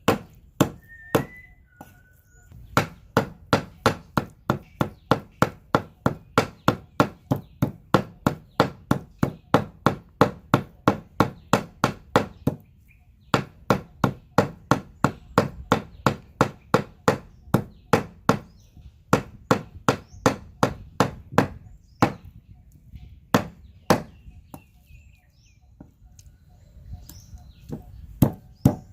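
Knife chopping pork on a cutting board: a fast, even run of strikes, about three to four a second, with a short break about halfway and slower, scattered strikes near the end.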